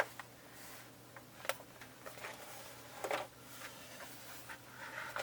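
Quiet handling of toy craft-kit pieces: a few soft clicks and rustles, the clearest about one and a half and three seconds in, over a faint steady room hum.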